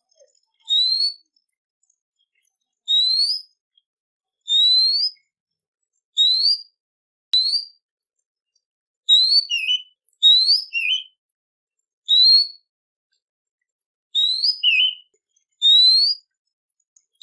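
Songbird giving a series of clear, rising whistled notes, about a dozen, each about half a second long and one to two seconds apart; a few are followed by a short, lower, wavering note.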